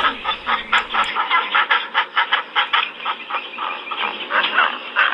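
Flock of flamingos honking and gabbling, many short calls following each other several times a second in a continuous chatter.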